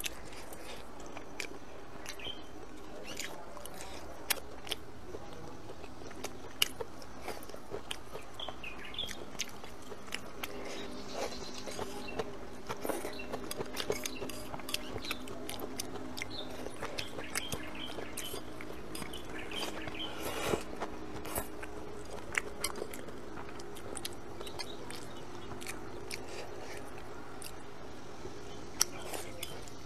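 Close-up eating sounds: a person chewing food, with frequent short, sharp clicks and taps of chopsticks against a ceramic plate.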